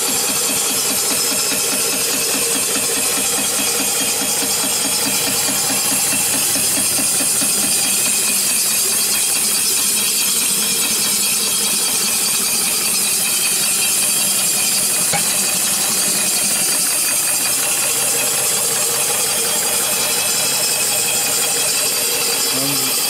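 Small single-cylinder steam engine (1.87-inch bore, 2-inch stroke) running steadily off a vertical fire-tube boiler, with a fast, even beat of exhaust under a steady hiss of steam.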